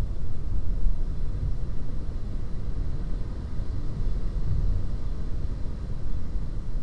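Low, fluctuating rumble of wind buffeting the microphone.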